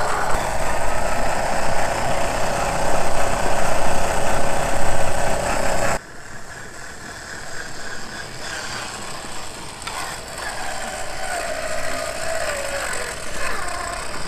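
Traxxas TRX-4 RC crawler's electric motor and geared drivetrain whining as the truck drives over rocky dirt. The whine is loud for the first six seconds, then drops suddenly and goes on quieter, wavering in pitch near the end.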